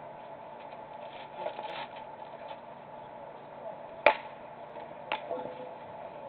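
Two sharp knocks of a baseball striking, about a second apart, the first much louder, over a steady background of field noise.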